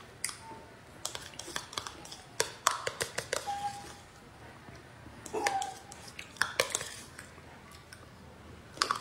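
Tableware clinking: scattered light clicks and taps in small clusters, with two or three short ringing pings.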